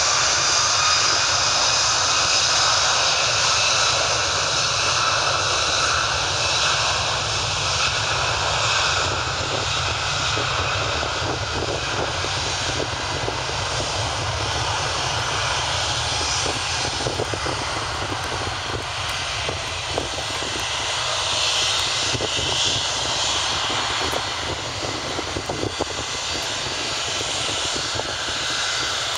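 An Airbus A340-600's four Rolls-Royce Trent 500 turbofans at takeoff power as the airliner rolls past and away down the runway. A steady jet rumble with a high fan whine that fades over the first ten seconds or so, the whole sound slowly easing as the aircraft moves off.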